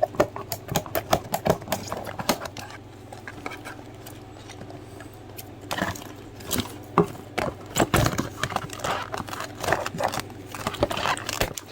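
Irregular clicks, taps and rustles of a doll's cardboard-and-plastic box packaging being handled while the doll is worked free of the ties holding it in, with a quieter stretch about three to six seconds in.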